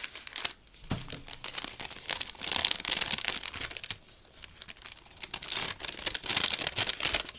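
Packaging being crinkled and torn open by hand as a small wrapped package is unwrapped, a dense rustling crackle that grows louder in two spells.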